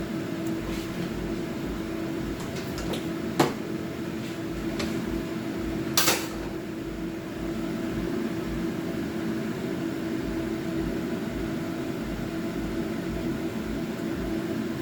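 Steady hum of a kitchen appliance, with two sharp knocks of kitchenware being handled, one about three and a half seconds in and a louder clack about six seconds in.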